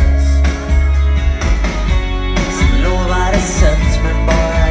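Live pop-rock band playing a song at high volume: guitars over a heavy, steady bass and drum low end, with a lead vocal line, as picked up by a phone in the crowd.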